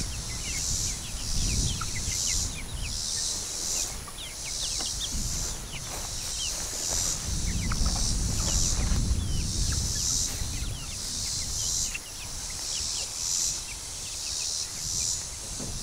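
An insect chorus pulsing steadily about twice a second, with young chickens peeping in many short falling notes, and a low rumble now and then.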